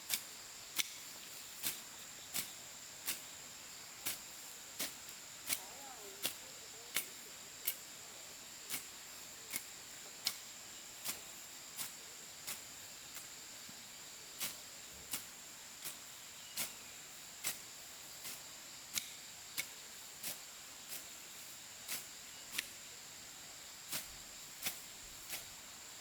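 Sharp tool strikes on wood or bamboo at a steady pace, a little more than one a second, over the steady high drone of insects.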